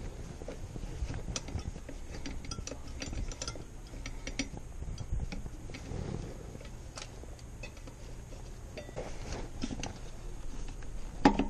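Light metallic clicks and taps of new brake pads being handled and fitted into a motorcycle's rear brake caliper, with a sharper, louder clack near the end.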